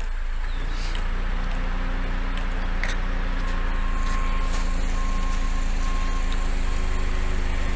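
A motor running steadily with a low hum, joined about three and a half seconds in by a repeating high beep.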